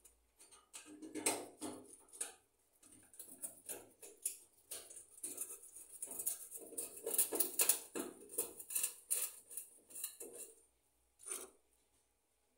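Hand screwdriver turning a screw into the sheet-metal top of a gas stove: irregular metallic clicking and scraping, stopping about eleven seconds in.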